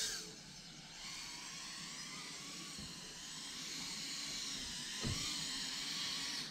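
Micro FPV quadcopter's small brushless motors and 2.5-inch ducted propellers whining as it hovers, the pitch wavering as the motors keep adjusting. It starts with a brief loud burst.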